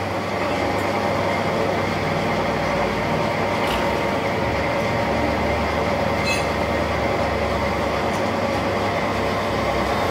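Large engine lathe running with a steady mechanical drone from its motor and gearing. Two brief sharp ticks come through, about four and six seconds in.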